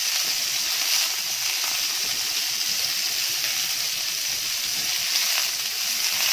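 Chicken kofta balls sizzling steadily in hot oil in a frying pan, with a couple of light taps as they are lifted out with tongs.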